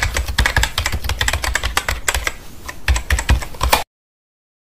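Keyboard typing sound effect: a rapid run of key clicks that cuts off suddenly near the end.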